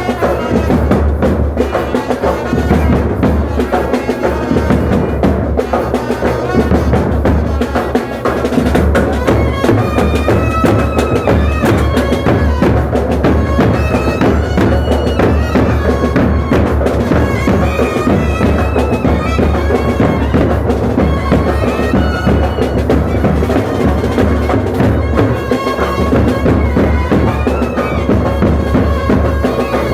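Festival band music: loud drumming with a reedy wind instrument playing a wavering melody over it, continuous throughout.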